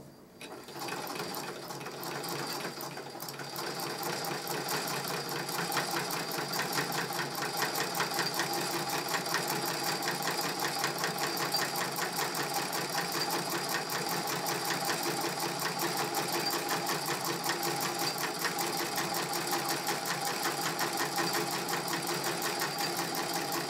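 Singer 127 vibrating-shuttle treadle sewing machine stitching through a quilt. It starts up about half a second in and builds speed over the first few seconds, then runs steadily with a rapid, even ticking of needle strokes. The machine runs smoothly from long oiling.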